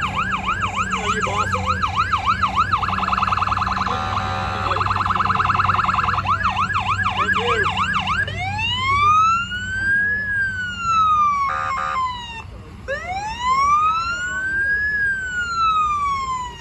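Ambulance's electronic siren passing close, switching modes: a fast yelp of about four sweeps a second, a faster warble, the yelp again, then two slow rising-and-falling wails. A vehicle engine hums underneath, and a short horn-like blare sounds about twelve seconds in.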